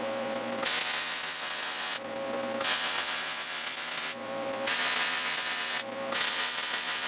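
Electric arc welding on steel plate: four short welding runs, each a steady crackling hiss lasting about a second, with brief pauses between them. It is filler weld being laid into a ground bevel groove between two butted steel plates of a leaf-spring perch pad, to get full penetration.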